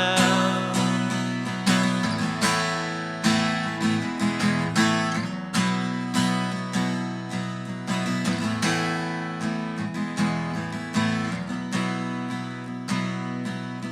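Acoustic guitar strumming chords in a steady rhythm: an instrumental break between sung lines of a slow worship song.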